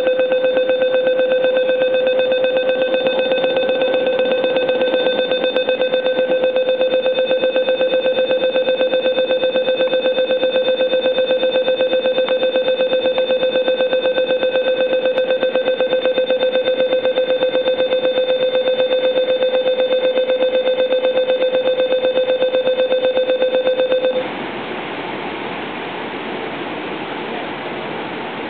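Train door-closing warning: a loud electronic beep at one steady pitch, pulsing rapidly, which cuts off suddenly about 24 seconds in. After it comes a steadier rushing noise, quieter than the beeping.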